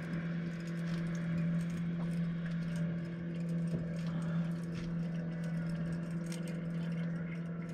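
Boat engine idling with a steady low hum, with faint irregular clicks from a fishing reel being wound against a heavy fish.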